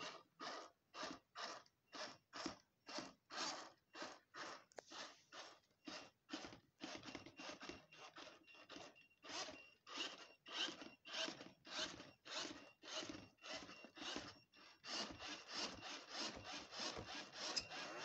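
Underclocked iRobot Roomba running on carpet. Its motors sound in a rhythmic rasping pulse, about two and a half strokes a second, instead of a steady whir.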